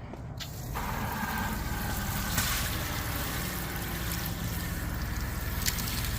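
Water rushing and spitting with air from the RV's outdoor shower, starting about a second in as the hot valve is opened, over the steady hum of a water pump running.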